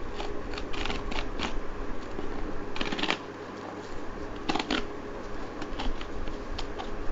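Cardboard smartphone box being handled and opened: scattered rustles, taps and scrapes of cardboard and packaging, with a longer scrape about three seconds in and another about four and a half seconds in.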